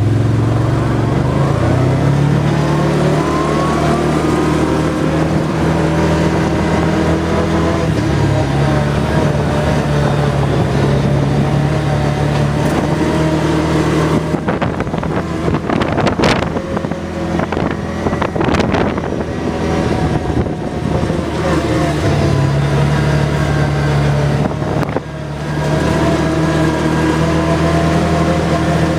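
ATV engine running under way, its pitch rising over the first few seconds as it picks up speed, then holding steady. About halfway through, the engine tone gives way to a rough rushing noise with knocks and jolts for several seconds before it comes back.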